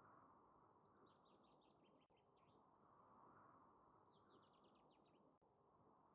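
Near silence with faint steady background noise; a bird sings faintly in two short phrases of quick high chirps, one starting about half a second in and another about three seconds in.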